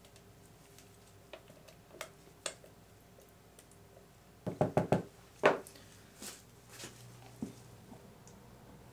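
Plastic soap-mixing pitcher and spatula knocking while soap batter is poured and scraped: a few light taps and clicks, then a quick run of four loud knocks about halfway through and a single louder knock just after, with a few softer knocks near the end.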